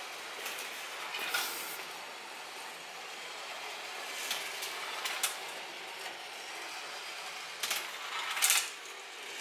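Marbles rolling along plastic rail track, a steady rolling rattle with scattered clicks. There are louder clatters about a second in, a few around the middle, and the loudest near the end.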